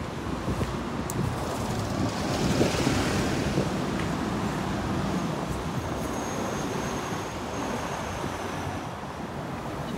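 Street traffic noise from passing buses and cars, with wind buffeting the microphone. It swells a little about two to three seconds in.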